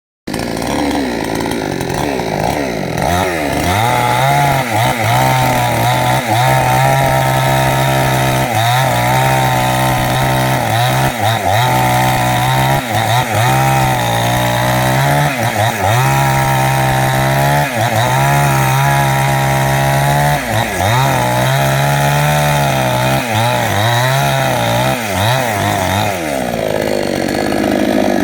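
Petrol chainsaw cutting into a jackfruit trunk: the engine revs up over the first few seconds, then runs high and steady under load, dipping briefly and picking up again as the chain bites, and eases off near the end.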